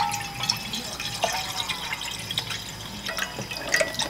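Broth being poured from a 1-litre carton into a pot of liquid, splashing unevenly as it fills.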